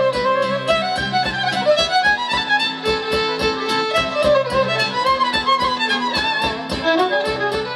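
Instrumental intro music: a melody over held low notes and a steady, quick beat.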